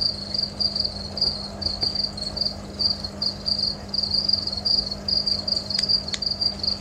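Crickets chirping steadily in short high pulses, about three a second. Near the end come two sharp clicks from the tumbler lamp's push switch as the lamp comes on.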